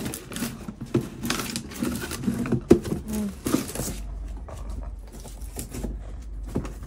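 Cardboard shipping box scraping and scuffing over brick pavers as a corgi drags it along in its mouth. The strokes are irregular and come thickest in the first four seconds, then thin out.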